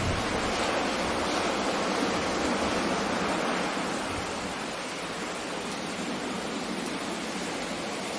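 Steady rushing wash of rain and sea surf, easing a little about halfway through.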